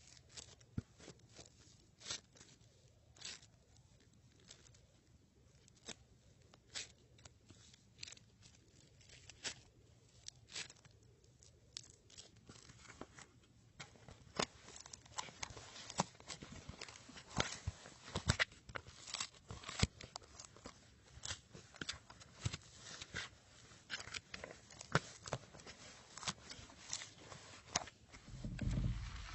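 Crunchy slime being squished and worked, giving sharp crackles and pops, sparse at first and coming thicker and louder from about halfway through.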